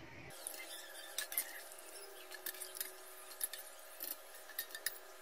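Light clinks and scrapes of a stainless steel slotted spoon against steel bowls as blanched cauliflower florets are scooped out of their soaking water and dropped into another bowl, with water dripping off them.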